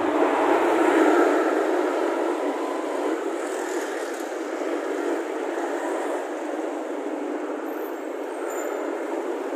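Steady traffic and road noise heard from a moving vehicle on a busy street, loudest in the first second and then easing a little.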